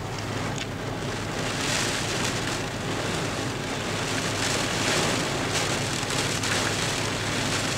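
Wind-driven heavy rain in an outer band of Hurricane Hanna: a dense, steady hiss of rain that surges with gusts about two seconds in and again about five seconds in. A steady low hum runs underneath.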